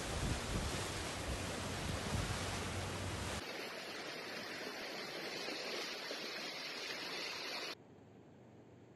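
Steady hiss of heavy rain and rushing floodwater, with a low rumble, heard from a vehicle driving through a flooded street. After about three seconds the low rumble drops out and only the rush of water running down the street remains; near the end the sound falls to near silence.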